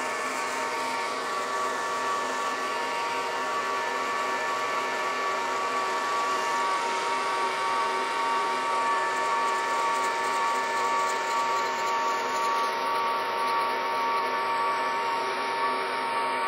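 Brown & Sharpe Micromaster surface grinder running, its wheel grinding the faces of small custom spacers held on the magnetic chuck as the table traverses: a steady whine with a few held tones over a grinding hiss.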